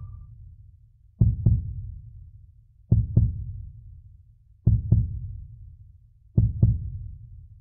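Slow, deep double thumps like a heartbeat, four pairs evenly spaced about 1.7 seconds apart, each fading quickly: a heartbeat-style pulse in the background music.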